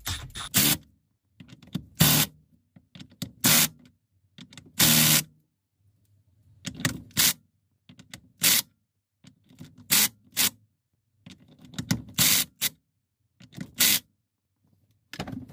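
Hand ratchet tightening a steering wheel's centre nut, giving about ten short bursts of rapid clicking, one every second or two, as the handle swings back between strokes.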